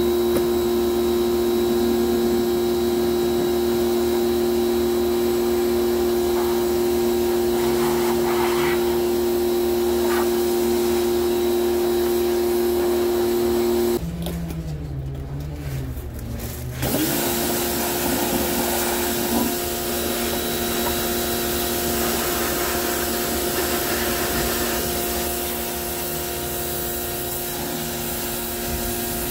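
Electric pressure washer running steadily, its motor and pump whining, with the spray hissing against a car's underbody. About halfway the motor drops out for around three seconds, then starts again.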